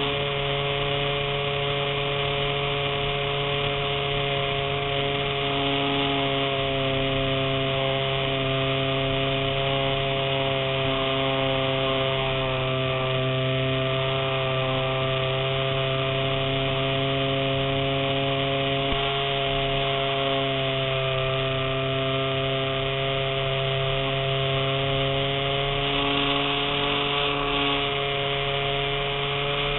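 Electric motor and propeller of a radio-controlled model warplane in flight, heard from an onboard camera: a steady whine whose pitch wavers slightly with throttle, over a rush of air.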